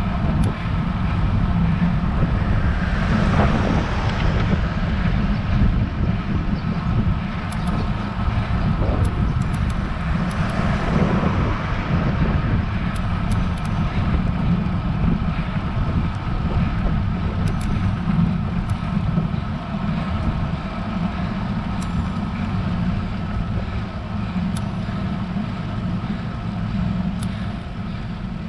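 Wind and riding noise on a bike-mounted action camera's microphone during a road-bike hill climb: a steady, buffeting low rumble, with two louder swells about 3 and 11 seconds in.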